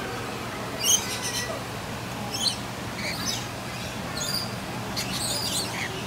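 Lorikeets giving short, shrill screeches and chirps, scattered irregularly, about eight over six seconds, over a low steady background hum.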